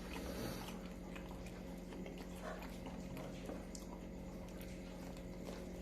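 A person chewing food close to the microphone, with soft wet mouth sounds and faint scattered clicks, over a steady low electrical hum.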